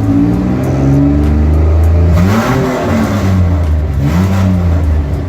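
Cummins diesel truck engine, loud, starting abruptly and revved up and back down twice, about two and four seconds in.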